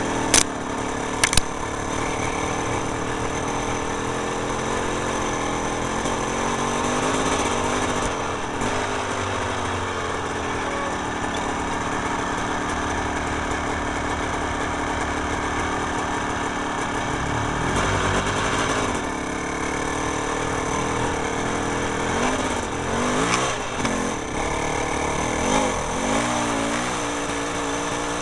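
An engine running steadily, its pitch rising and falling a few times in the second half, with two sharp knocks about a second in.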